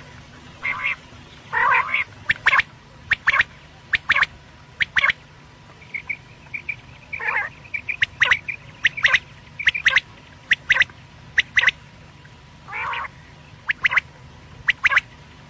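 Quail calling over and over: short, sharp high notes in quick pairs and triplets about every half second, with three longer, lower, raspy calls between them.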